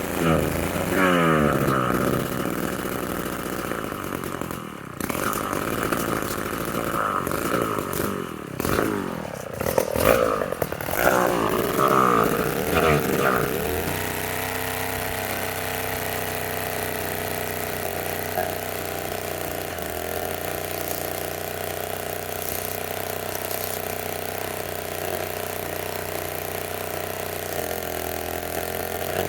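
David Bradley 360 gear-driven two-stroke chainsaw engine revving up and down for about the first half. About fourteen seconds in it settles to a steady idle.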